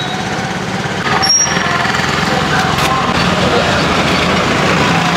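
Busy roadside food-stall noise: a steady engine-like drone with traffic and indistinct voices. A sharp click about a second in, after which it is a little louder.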